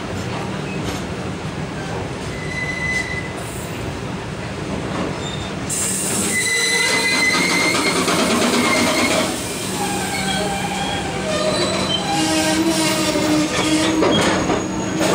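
Long freight train of covered goods wagons rolling past on the next track, steel wheels running over the rails. High wheel squeals come and go, and the sound grows louder about six seconds in.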